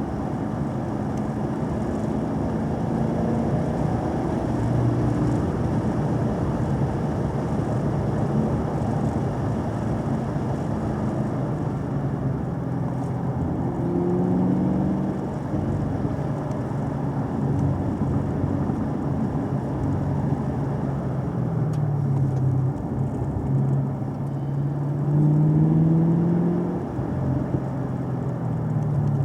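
Car engine pulling and easing off on a winding road, its pitch rising and falling over and over with the gear changes and throttle, over steady tyre and road noise.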